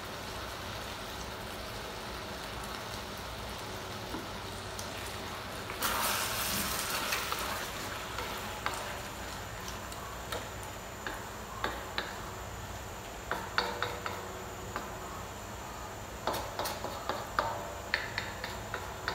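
Chicken stir-fry in tomato sauce sizzling gently in a stainless steel wok. About six seconds in it is stirred with a wooden spatula, giving a louder surge of sizzling and scraping, and later the spatula clicks and knocks against the wok's metal side in scattered strokes.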